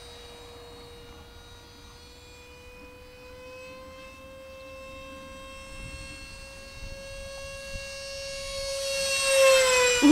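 The 50 mm electric ducted fan of an RC F-16 jet making a steady whine that rises slightly and grows louder as the plane comes closer. Near the end it passes close by and the pitch drops quickly.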